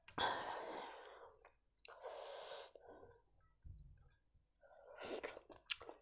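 Close-miked eating sounds of someone eating rice and meat by hand: three breathy, rustling bursts and a few small mouth clicks between mouthfuls.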